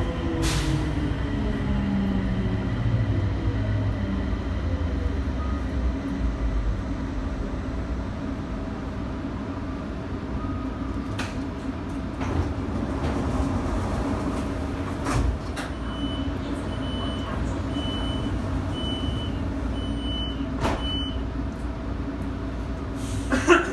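Rubber-tyred automated people-mover train (Bombardier Innovia APM 300) pulling away from a station and running along its concrete guideway, heard from the front cab: a steady rolling noise with a motor hum, its tones shifting in the first few seconds. About two-thirds of the way through come about six short high beeps, roughly one a second, and a few sharp knocks sound over the running noise.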